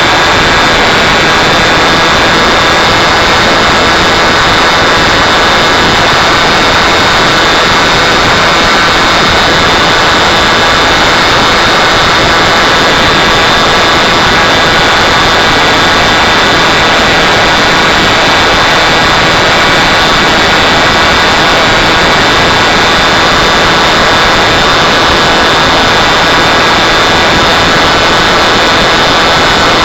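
Soviet Ritm-M model engine, a used one on its test run, running flat out at a steady high speed with a loud buzzing note that holds the same pitch throughout.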